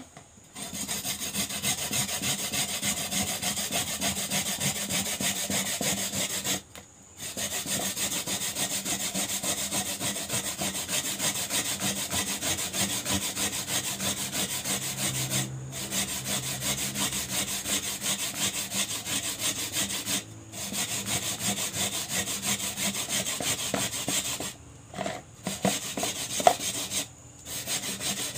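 Coconut flesh being grated by hand on a long flat metal grater: a steady run of rapid rasping strokes, broken by a few short pauses.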